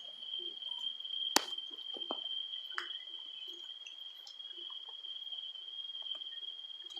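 A cricket trilling on one steady high note, with one sharp click about a second and a half in.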